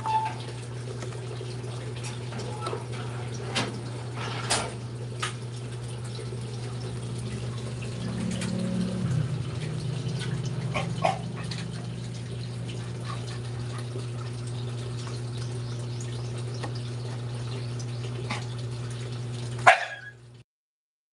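Puppies' small cries amid scattered clicks and knocks, over a steady low hum, with one sharp knock near the end.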